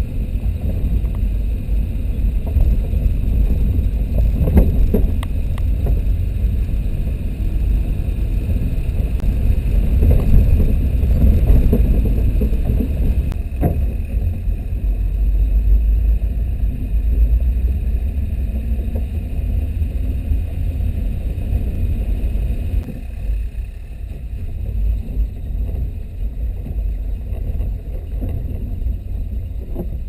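Old Jeep driving along a dirt road: a steady low engine and road rumble heard from a camera mounted on its hood. There are a couple of sharp knocks, and the rumble eases a little about two-thirds of the way through.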